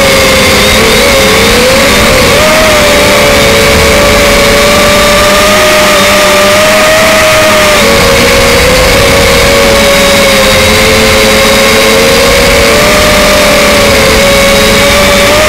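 Electric motors and propellers of an RC Leading RC126 running in flight, heard close up from its onboard camera: a loud, steady whine whose pitch wavers up and down as the throttle shifts.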